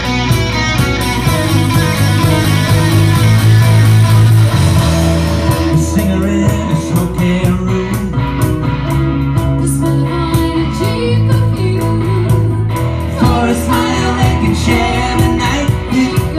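Loud guitar-driven rock music with a steady beat and some singing.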